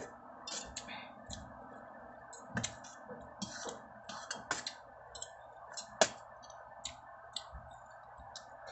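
Spoon and fork clicking and clinking against a stainless steel soup pot and a plate of rice during a meal: irregular small clicks, with one sharper clink about six seconds in.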